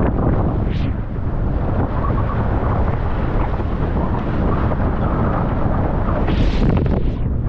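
Wind buffeting a GoPro's microphone, mixed with water rushing past a windsurf board as it sails. Brief splashes of spray come about a second in and again near the end.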